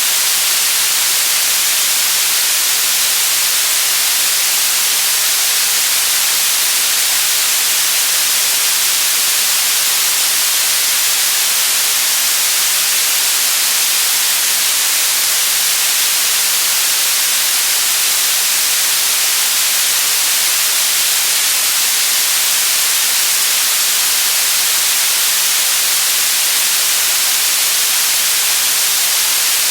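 Steady white noise: a constant, even hiss, brightest in the treble, with no change or break.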